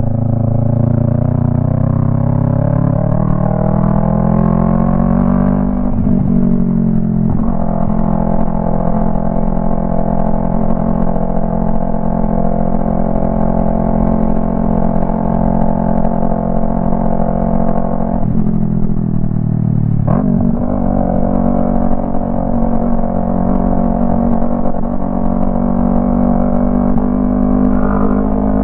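Yamaha MT-03 motorcycle running through a Jeskap aftermarket exhaust with the dB killer removed, under way: the engine note climbs under acceleration for the first few seconds, breaks at two quick gear changes, holds steady while cruising, then dips and picks up again at another shift past the middle.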